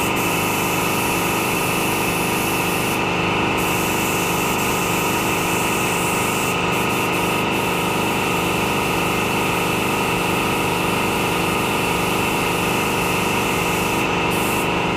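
Gravity-feed air spray gun hissing steadily as it sprays epoxy primer, the hiss stopping briefly a few times, over the steady drone of a running machine.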